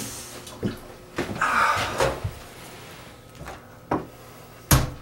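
Mirrored bathroom medicine cabinet door and its contents being handled: a series of light knocks and clicks, with the loudest a sharp snap near the end as the cabinet door is shut.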